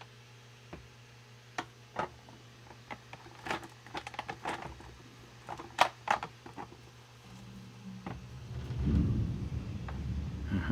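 Scattered light clicks and taps as plastic packaging and small parts are handled, then a low rustling of handling from about eight seconds in.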